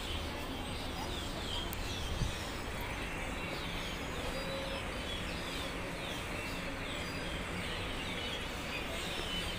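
A flock of birds chirping noisily in the trees, a dense run of short falling chirps over steady background noise, with one brief thump about two seconds in.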